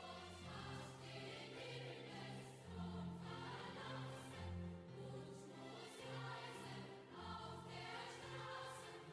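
Background music: a choir singing long, held chords that change every second or so.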